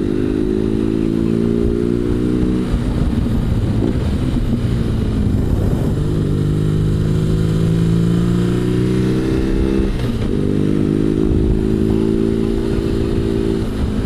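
BMW R1200GS boxer-twin engine running under way, its note falling away as the throttle is eased about three seconds in and again around ten seconds, then picking back up. Wind rushes past the rider throughout.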